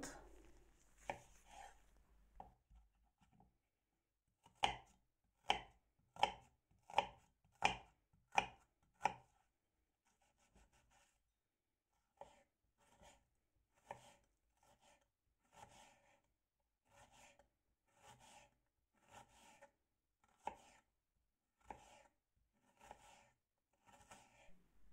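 Kitchen knife chopping an onion on a wooden cutting board: the blade knocks on the board in slow, even strokes, roughly one every 0.7 s. A louder run of strokes comes in the first third, then a short pause, then softer strokes at the same pace.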